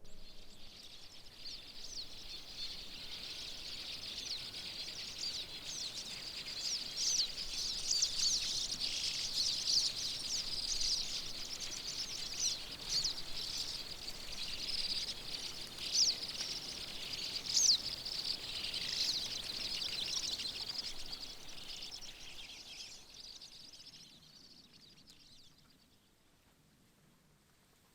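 Small birds chirping and twittering in a dense, overlapping chatter. It swells, is loudest in the middle, and fades out a few seconds before the end.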